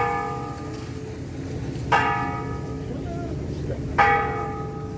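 A bell tolling at an even pace. It is struck three times about two seconds apart, and each strike rings on and fades before the next.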